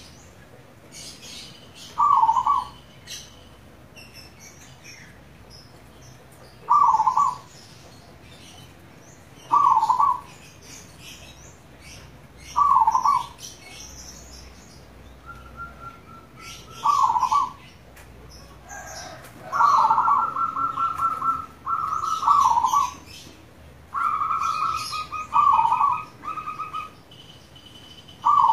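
Zebra dove (perkutut) song: short cooing phrases repeated about every three to four seconds. In the second half, longer trilled notes come in between the coos, and small birds chirp faintly at a higher pitch throughout.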